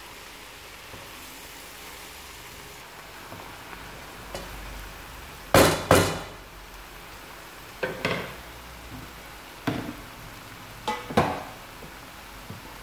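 Wooden spatula stirring vegetables in a frying pan, knocking sharply against the pan several times, some in quick pairs, from about halfway in. Under it runs a faint steady sizzle of the vegetables frying.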